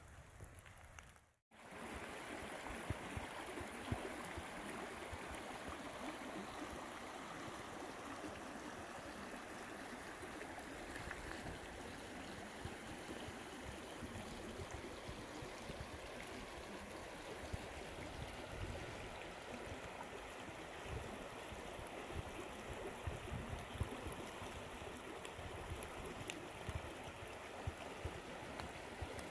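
Small forest creek flowing fast: a steady rush of water. The sound cuts out for a moment about a second and a half in, and the rushing water then sets in.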